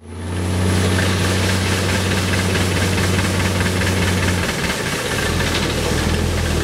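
Self-propelled almond sweeper running: a steady low engine hum under a wide rushing noise from the machine at work. The engine note drops slightly about four and a half seconds in.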